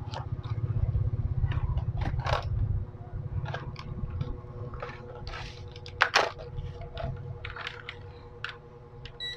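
Handling noise on a workbench: scattered clicks and knocks as a digital multimeter and its test leads are picked up and set down. There is a low rumble in the first three seconds, and the sharpest knock comes about six seconds in.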